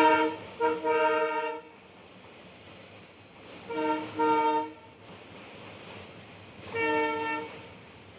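Diesel locomotive's air horn blowing five steady multi-tone blasts in three groups: a short blast and a longer one, then two more about four seconds in, and a single blast near the end. Underneath runs the steady rumble of the passing tank wagons.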